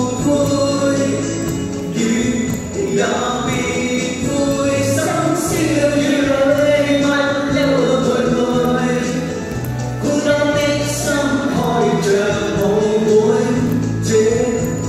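Two men and a woman singing a pop song into handheld microphones, amplified, over instrumental accompaniment with a steady bass beat.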